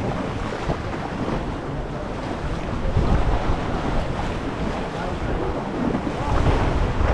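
Boat running across choppy open sea: rushing water and wind buffeting the microphone, with louder surges about three and six seconds in.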